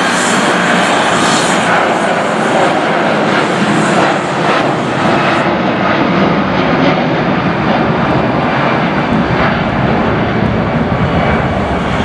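Jet airliner's engines, a loud steady roar of a plane close by. About halfway through the highest hiss fades while the deep rumble grows stronger.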